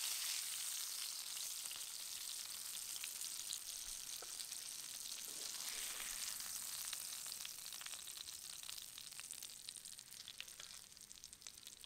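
Hot oil sizzling and crackling in a frying pan as spice-coated pearl spot fish shallow-fry, dying down over the last few seconds.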